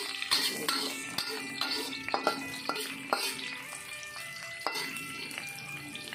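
Metal spatula scraping and knocking irregularly against a steel wok as aromatics stir-fry in oil, with a light sizzle, over background music.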